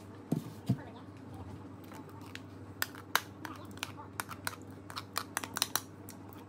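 A spoon scraping and clicking against a bowl as thick batter is scraped out into a baking tray. Two soft thumps come about half a second in, and quick, sharp clicks crowd the second half.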